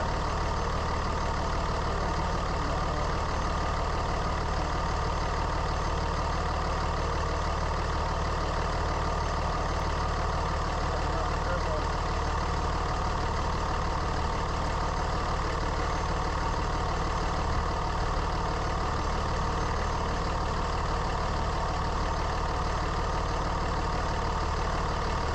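A third-generation Dodge Ram's Cummins inline-six turbodiesel idling steadily with a steady howl, the sign of a bad alternator bearing.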